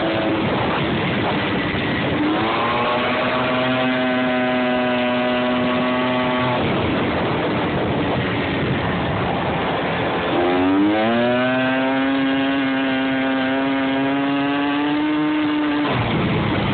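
Small scooter engine accelerating twice, its pitch rising and then holding steady for several seconds each time. A steady rushing noise from riding runs underneath.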